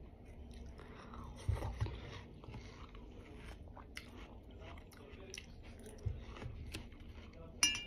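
Close chewing and biting of juicy watermelon, with small clicks of a fork and knife against a stainless steel bowl and a short ringing metal clink near the end.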